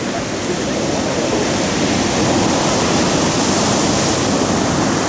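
Storm surf on the sea: heavy waves breaking and rushing in a loud, continuous roar of water, swelling a little about a second in.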